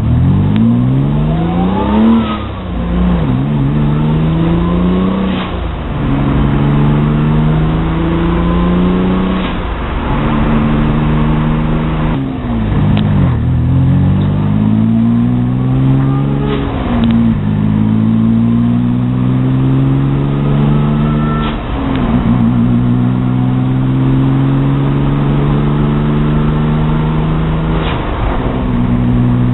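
Engine with advanced cam timing being revved over and over. Each time it rises in pitch, holds a steady speed for a few seconds, then drops back and climbs again.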